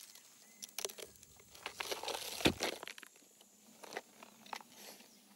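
A honey badger digging and prying at loose soil and rock shards: scattered scrapes, crunches and clicks, the sharpest a single knock about two and a half seconds in.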